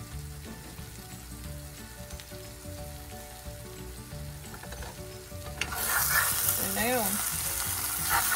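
Sliced potatoes and onions sizzling in a cast iron skillet with a little water in the pan. After about five and a half seconds the sizzle suddenly gets much louder and brighter as a spatula stirs and turns them, with a short wavering scrape about a second later.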